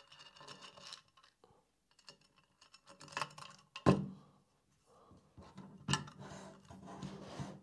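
Hands fitting bolts, washers and nuts to a drag chain mount on a black aluminium CNC gantry plate: small metal parts scraping, rubbing and clicking. Two sharp knocks, about four and six seconds in, as the plate is moved on the mat.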